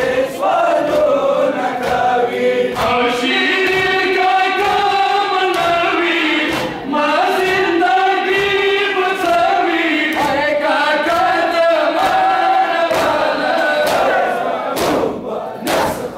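A crowd of male mourners chanting a Muharram lament (noha) in unison to a steady beat of open-handed chest-beating (matam). Near the end the chant breaks off and the loud slaps of the chest-beating stand out.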